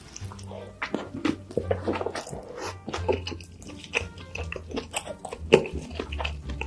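Close-miked eating sounds: chewing and biting with many short crunchy clicks and crackles, over a low steady hum.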